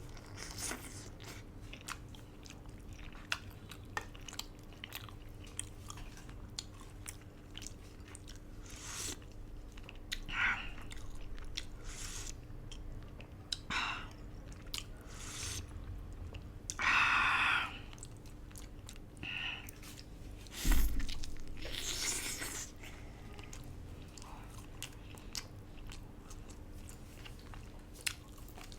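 Close-miked eating of duck noodle soup: wet chewing and biting with many short mouth clicks and smacks, and two louder, longer noisy bursts, one about halfway through and one a few seconds later.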